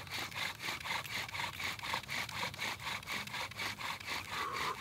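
Bow drill being worked for friction fire: the wooden spindle grinding against the hearth board as the bark-cord bow is drawn back and forth, a steady rhythmic scraping. The spindle is under added pressure, at the stage where the hearth begins to smoke and build the dust that forms a coal.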